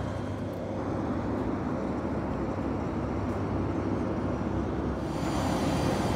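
A propeller airplane's engine running steadily, getting a little louder and hissier about five seconds in.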